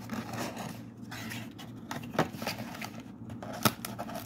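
Cardboard trading-card blaster box handled and opened, its paperboard scraping and rustling as the white inner box is slid out. There are two sharp clicks, one about halfway through and a louder one near the end.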